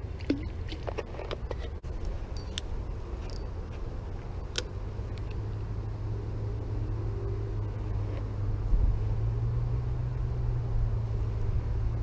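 Low, steady rumble of a motor vehicle that grows louder about halfway through, with a few light clicks over it.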